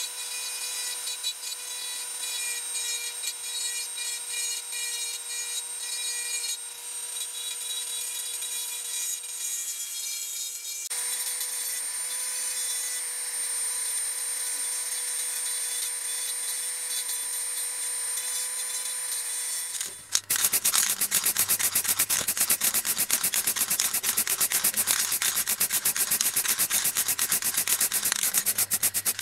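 High-speed rotary tool grinding the diecast metal body of a model ambulance: a steady motor whine over the rasp of the bit on metal. About two-thirds of the way in this gives way to a louder, rapid, evenly pulsing hiss as the body is spray-painted.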